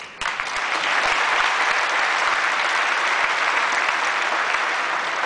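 A large audience applauding, breaking out suddenly and holding steady, easing slightly near the end.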